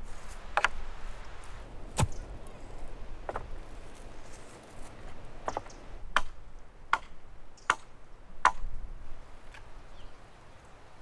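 Sharp wooden knocks and chops, about eight of them at uneven intervals, from work on the long wooden poles of a tipi-style shelter frame, the loudest about two seconds in and near the end.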